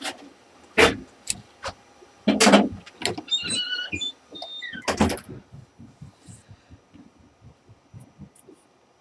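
Handling noise on a workbench: a series of sharp knocks and clicks as tools, test leads and meter parts are moved and set down, the loudest about two and a half seconds in. A short squeak comes just after three seconds, and the sounds thin out to faint ticks in the second half.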